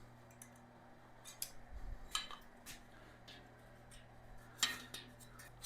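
Pliers clicking and tapping on a metal shelf support bar as its end tabs are gripped and bent down: a few faint, scattered clicks, the loudest a little before the end.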